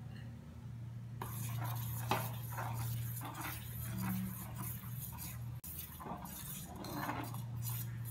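Steel spoon stirring thickening ragi malt in a stainless steel pot, scraping and clinking against the sides and bottom in repeated strokes that start about a second in. A steady low hum runs underneath.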